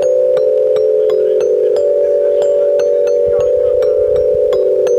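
Glockenspiel played one struck note at a time, about two or three notes a second, over a steady held chord that shifts in pitch now and then.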